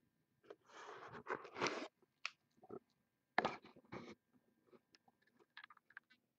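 Hand-handling noises: crinkling and rustling for about a second and a half, then scattered clicks and knocks, the sharpest about three and a half seconds in.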